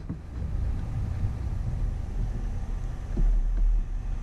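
Wind rumbling on the microphone, with a light knock a little over three seconds in.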